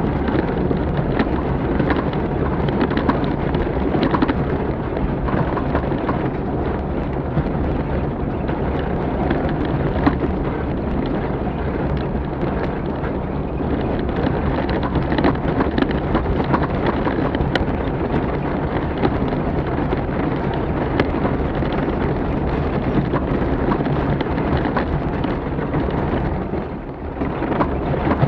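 Onboard sound of an offroad rally vehicle driven hard over a rough track: a constant rumble of engine and wind, with a steady patter of stones and gravel striking the bodywork. It eases briefly near the end.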